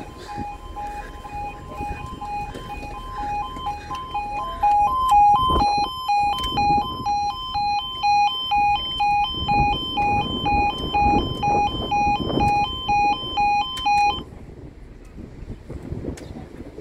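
UK level crossing alarm sounding: an electronic two-tone yodel that switches to a pulsing beep about twice a second, then cuts off suddenly about fourteen seconds in. A low rumble of passing road traffic runs underneath.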